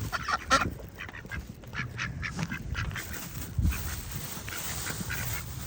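Ducks quacking in a rapid series of short calls, with a low wind rumble on the microphone.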